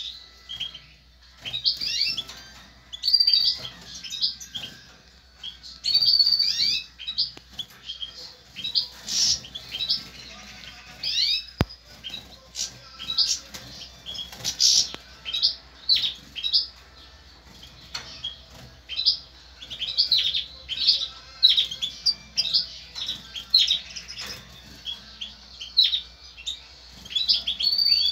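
European goldfinch (Balkan subspecies, Carduelis carduelis balcanica) singing: quick runs of high, twittering notes in phrases of a second or two, broken by short pauses.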